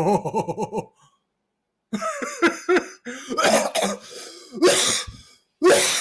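A man coughing and hacking in several rough fits. These follow a drawn-out, wavering vocal sound at the start and a second-long pause.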